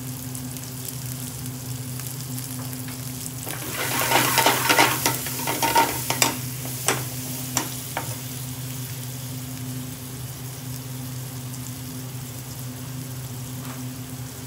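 Grated onions, peppers and chillies frying in mustard oil in a metal frying pan, a steady sizzle over a constant low hum. From about four seconds in, a metal spoon stirs and scrapes the pan for several seconds, the loudest part, ending in a few sharp knocks.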